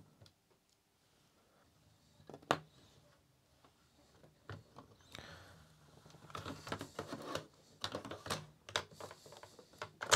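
Hands and a small screwdriver working the plastic parts of a CD player's disc-loading mechanism: one sharp click about two and a half seconds in, then from about six seconds a quick run of small plastic clicks and rattles as the part is worked loose.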